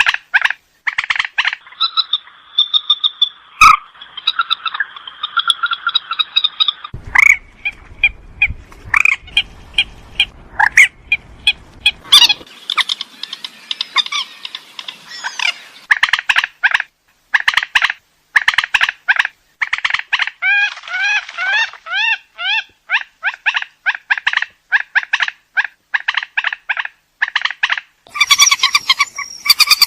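Rail (burung mandar) calls of the kind played as a bird-catching lure: a long, rapid series of sharp repeated call notes, broken by trilling stretches of upward-curving notes. A low rumble sits under the calls from about a quarter of the way in until nearly halfway.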